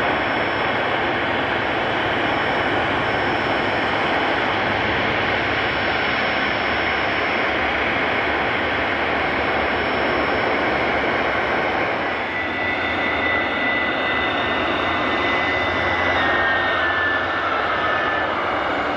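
Twin rear-mounted turbofans of a business jet running at taxi power: a steady jet rush with a high whine. About twelve seconds in a lower whine comes in and dips slightly in pitch a few seconds later as the jet taxis past.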